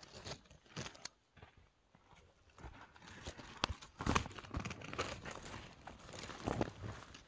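Leaves of lily of the valley and dry leaf litter rustling and crackling as they brush against and are pushed aside close to the microphone. Sparse at first, the rustling grows busier and louder about halfway through.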